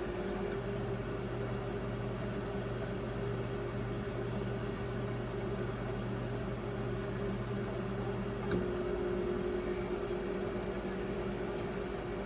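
1996 Brastemp Clean BMP31 microwave oven, built by Samsung, running on its auto re-heat cycle: a steady hum over a hiss with faint clicks. About eight and a half seconds in, a click sounds and the hum's tone shifts.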